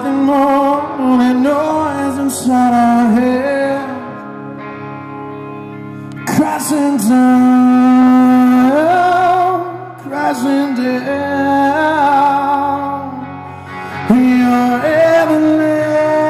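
Live rock performance: a male singer sings long held and sliding notes over guitar, in phrases separated by short quieter stretches where only the instruments play.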